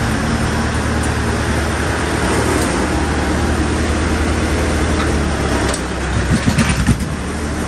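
Massey Ferguson 65 tractor's four-cylinder diesel engine running steadily as the tractor drives past close by, with a quick run of pulsing thumps as it passes nearest, about six seconds in.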